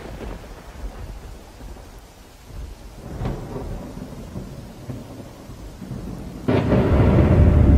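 Thunderstorm sound effect: rain with low rumbling thunder and a sharper crack a little after three seconds in. Near the end, loud music with deep bass comes in.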